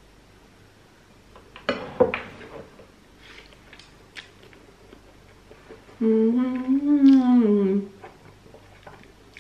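A woman eating instant noodles: a short slurp about two seconds in, a few faint chewing clicks, then, about six seconds in, a pleased closed-mouth 'mmm' hum with her mouth full, nearly two seconds long, rising a little in pitch and then falling.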